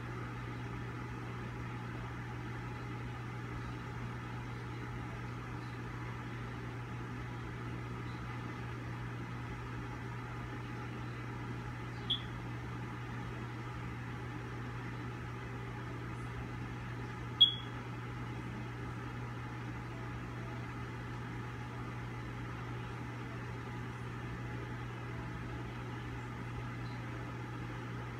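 Steady low mechanical hum. Two brief high-pitched squeaks break through it, one about twelve seconds in and a louder one about seventeen seconds in.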